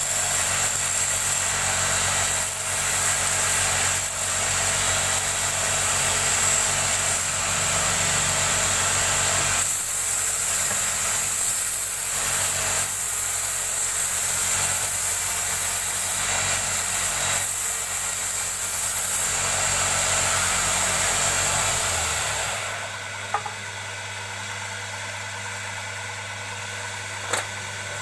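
Wood lathe running, with a loud hissing scrape from a turning tool cutting the spinning wood. About 22 seconds in the cutting stops and the level drops to the lathe's steadier, quieter motor hum. Two sharp clicks follow near the end.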